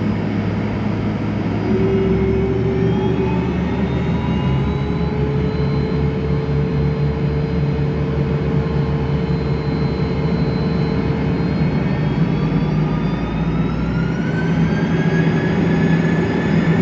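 Fokker 100's rear-mounted Rolls-Royce Tay turbofans heard from inside the cabin beside the engine, running steadily as the jet lines up on the runway. About twelve seconds in, a whine begins to rise in pitch as the engines spool up for takeoff.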